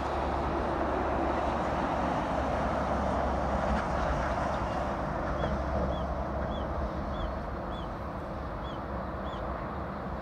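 Steady rush of traffic on the Kanmon Bridge expressway below, with a low hum underneath. About halfway through, a small bird chirps seven times in a row.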